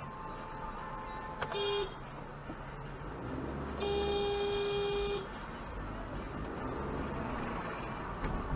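Car horn honking at a car pulling out in front: a short toot about a second and a half in, then a longer blast of about a second and a half. Steady low road noise inside the car underneath.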